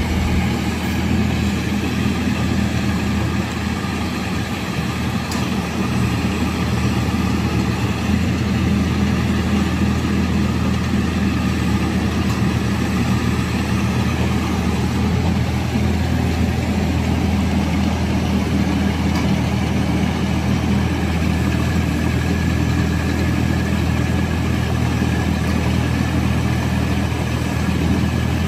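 Diesel engine of a 2.5-ton mini excavator running steadily at idle.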